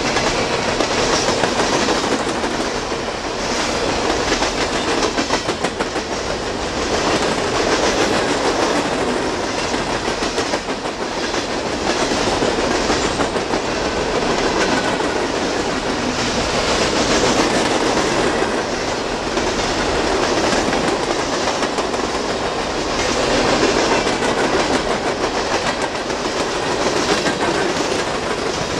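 Freight train of hopper cars rolling past at speed: a steady rumble of steel wheels on rail, with the clickety-clack of wheel sets over rail joints, swelling and easing slightly as the cars go by.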